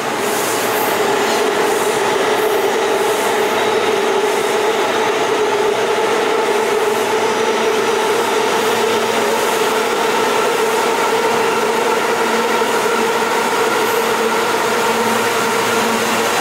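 Siemens R160B subway train standing at a station platform, giving a steady, unchanging hum with a whining tone from its onboard equipment.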